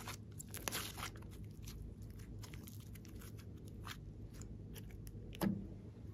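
Hands squeezing and pulling apart soft clay, giving small sticky crackles and clicks, with one soft thump a little past five seconds in.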